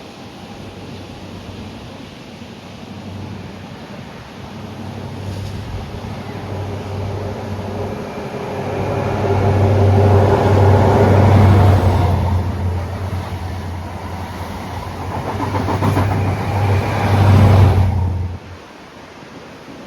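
A diesel train running past on the seafront line, its engine hum growing louder, peaking twice and then cutting off suddenly near the end, with surf behind it.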